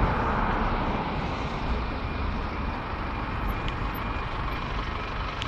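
A steady roar of road traffic with uneven rumbling wind on the microphone, slightly louder in the first second.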